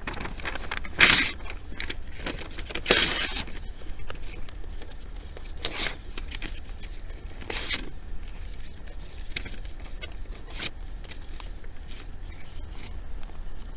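Wood bonfire crackling with scattered small pops and a few louder snaps, about a second in, about three seconds in, and twice more around the middle, over a steady low rumble.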